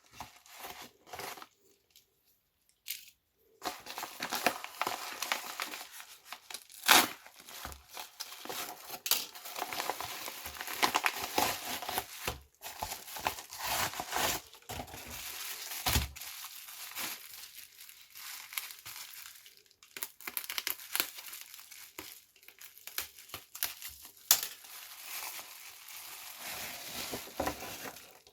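Plastic packaging crinkling as it is handled and opened, with sharp louder cracks about seven and sixteen seconds in.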